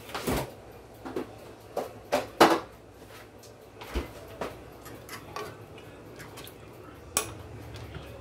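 Kitchen clatter: a string of separate clinks and knocks of dishes, pots and metal utensils being handled, the loudest about two and a half seconds in.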